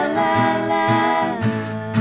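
Background music: an acoustic guitar song.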